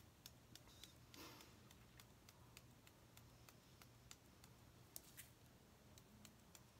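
Near silence: faint scattered ticks and a brief soft rustle as loose glitter is pressed by hand onto a painted tumbler from a small plastic pot, over a low steady hum.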